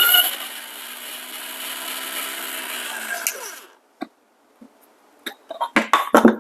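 Motorized 1zpresso hand coffee grinder grinding a small batch of beans. The burr noise thins out to a steady motor whine as the last beans run through, then falls in pitch and stops a bit over three seconds in. A few sharp knocks and clicks follow as the grinder is handled.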